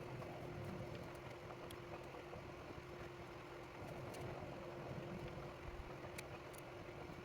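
Faint small clicks of a tool and screws as the top plate of an FPV drone is taken off, a few scattered ticks over a steady low hum.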